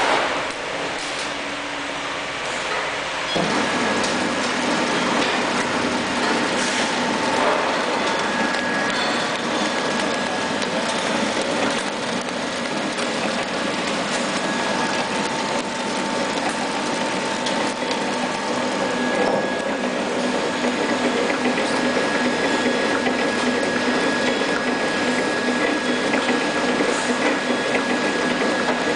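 Horizontal pillow-pack flow-wrap packing machine running: a steady mechanical clatter from its pusher conveyor and sealing rollers, with a faint steady whine. It gets louder about three seconds in.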